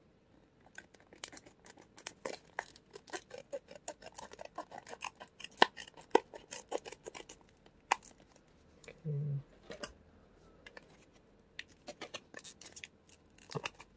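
Scissors snipping at a microSD card's packaging in a long run of quick, sharp clicks and crackles, with a few louder snips around the middle. The package is not yet open.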